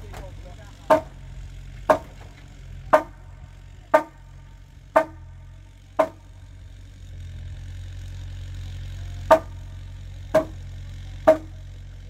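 Hammer blows on the hut's timber frame, evenly spaced at about one a second with a short ring after each: six strikes, a pause of about three seconds, then three more. A low steady drone runs underneath.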